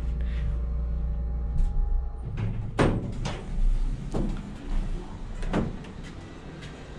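A steady low hum with a few held tones for the first two seconds, then a series of knocks and thuds about half a second to a second apart. These are a sliding elevator door and footsteps as someone steps out of the cab.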